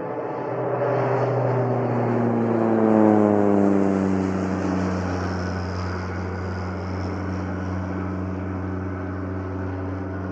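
Airplane flying past: its engine drone grows to its loudest about three seconds in while its pitch falls as it passes, then settles into a steady, lower drone.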